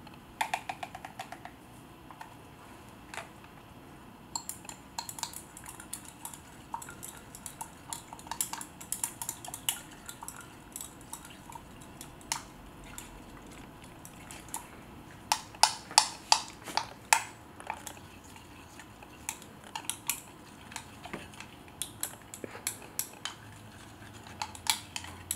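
Spoon stirring yeast into warm water in a small clear cup, clinking and tapping against its sides in irregular runs of sharp clicks, busiest in the middle and over the last few seconds.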